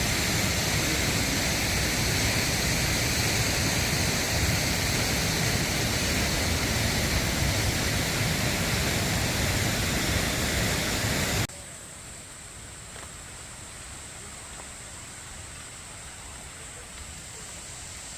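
Steady rush of water pouring over a waterfall swollen with rainy-season flow. About two thirds of the way through it cuts suddenly to a softer, duller rush.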